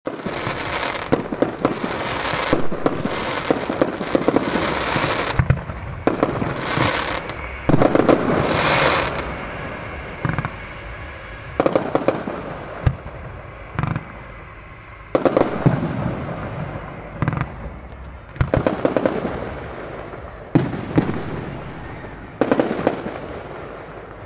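Aerial fireworks shells bursting in quick succession, sharp bangs each trailing off into a rumbling echo. Dense crackling fills roughly the first ten seconds, then the bangs come singly a second or two apart.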